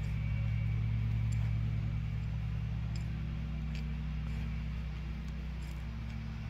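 Steady low machine hum, loudest in the first couple of seconds, with a few faint ticks.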